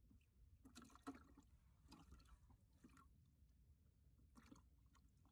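Near silence: a faint low hum with four soft, short noises spread through it.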